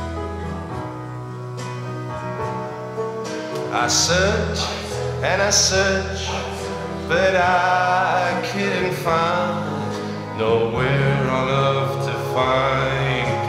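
A man singing into a microphone over a guitar-backed song with held low bass notes. The voice comes in about three and a half seconds in, over the instrumental.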